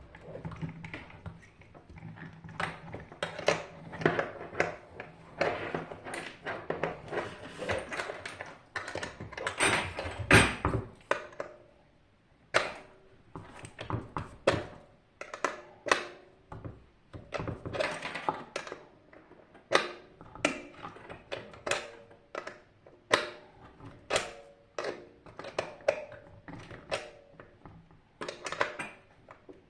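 Irregular clicking, tapping and knocking of hand tools and small metal parts being handled during the disassembly of a water heater, some strikes ringing briefly; the loudest knock comes about ten seconds in.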